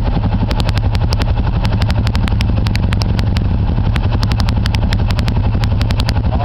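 ATV (quad) engine running steadily at an even pitch while riding, with frequent sharp clicks and ticks over it.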